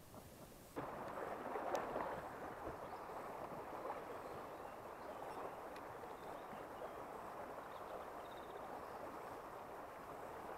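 Shallow river water running, a steady rushing noise that sets in suddenly about a second in, with a single faint click about two seconds in.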